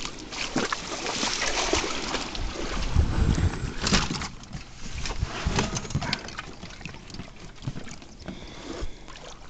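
Inflatable PVC boat being rowed: oars swishing and splashing in the water, with low bumps about three and four seconds in.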